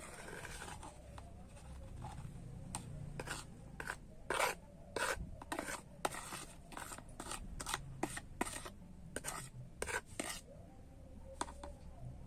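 A spoon crushing and grinding herbal medicine tablets in a container, in a run of short, irregular rasping scrapes.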